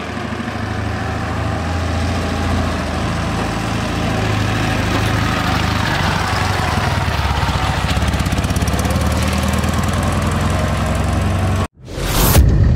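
M-72 sidecar motorcycle's side-valve flat-twin engine running steadily as it is ridden, growing louder over the first couple of seconds. The engine sound cuts off abruptly near the end, and a brief rushing sound follows.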